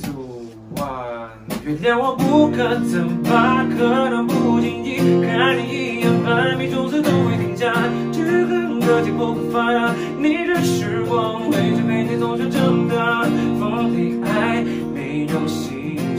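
Strummed acoustic guitar with a man singing a melody over it, his voice wavering in a vibrato; the full playing comes in about two seconds in after a quieter start.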